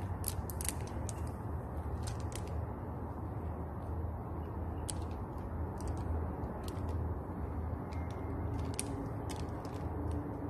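Dominican amber rosary beads clicking lightly against each other as the strand is handled: scattered short ticks, some in quick little clusters, over a steady low hum.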